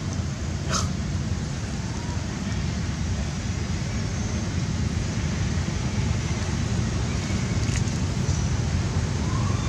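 Steady low rumble of outdoor background noise, with a sharp click a little under a second in and a fainter one near eight seconds.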